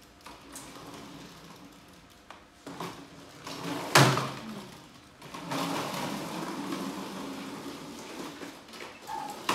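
A sharp knock about four seconds in, then the steady rolling rumble of a plastic ride-on swing car's small wheels on a tiled floor as it is pushed along.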